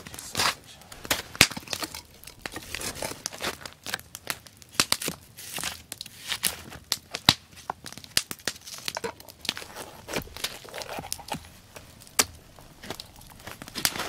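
Wood campfire crackling and popping, with many irregular sharp snaps over a faint hiss.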